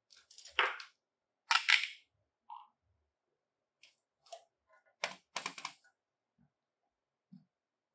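Small plastic toy pieces being handled, with short bursts of clicks and clatters; the loudest come about half a second and a second and a half in, with another cluster around five seconds.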